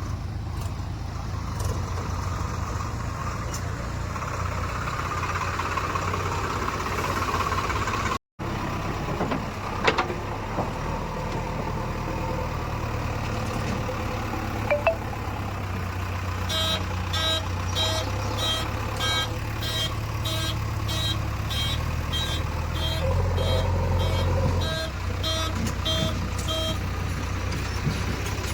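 Heavy diesel engine of a JCB 3DX backhoe loader running steadily under work, with a single knock about a third of the way in. From about halfway, a reversing alarm beeps about twice a second for some ten seconds.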